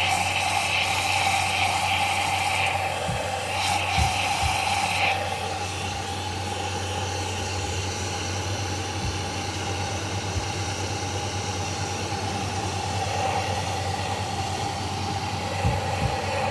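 Mains-powered coffee machine running with a steady electrical hum, a hiss rising over it near the start and again about four seconds in.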